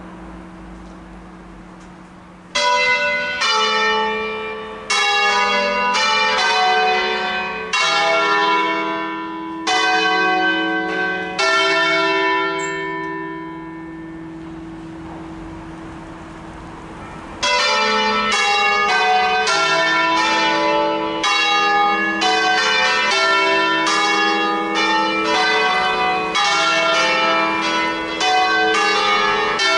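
A five-bell Ottolina church peal in E, swinging bells rung electrically under manual control. The bells strike one after another every second or two, each ringing on. The ringing dies down to a lingering hum for a few seconds midway, then the bells strike again in quick succession.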